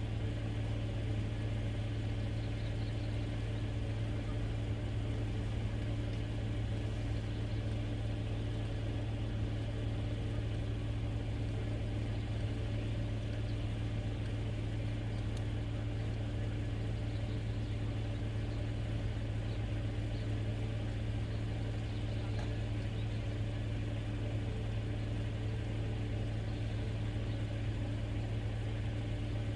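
Car engine idling: a steady low hum that holds the same pitch and level throughout.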